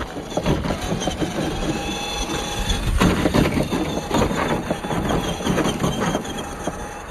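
1:10 scale RC crawler van (MST CMX Delica) driving over rough trail ground: a rapid, uneven clatter of knocks and crunches from the tyres on rocks and the bouncy chassis and body rattling, loudest about three seconds in.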